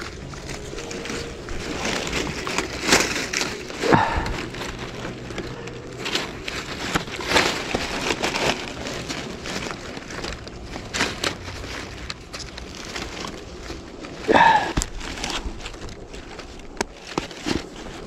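Dry fallen leaves rustling and crackling, with the clicks of straps and buckles, as tree-climbing spikes are strapped onto the legs. The sound is irregular, with a few sharper knocks and louder rustles throughout.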